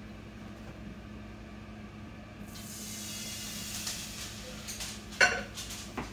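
Red wine poured into a hot skillet, hissing and sizzling from about two and a half seconds in. A sharp knock comes about five seconds in.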